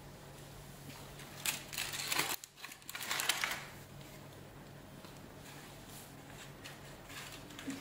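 Rustling and crackling of leafy branches as a baby orangutan grabs them and climbs, loudest for about two seconds starting a second and a half in, with scattered small clicks over a steady low hum.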